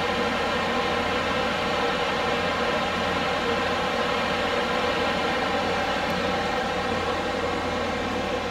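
Shipboard machinery running steadily: a loud, constant hum and drone that does not change.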